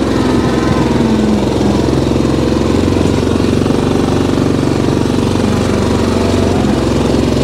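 Yamaha Grizzly 700 ATV's single-cylinder engine running steadily at low revs, pulling up a hill in four-wheel-drive low with the differential locked and towing a loaded cart.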